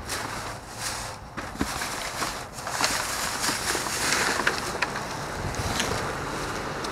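Clear plastic trash bags rustling and crinkling as a hand grabs, pulls and lifts them, with scattered small crackles and clicks.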